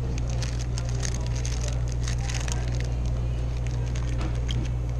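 Clear plastic wrapping crinkling and crackling as it is handled, busiest in the first three seconds and sparser after, over a steady low hum.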